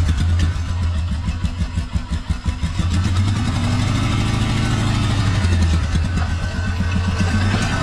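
ATV engine running steadily, with the throttle opened and eased off once in the middle, as the quad is driven into the bed of a pickup truck.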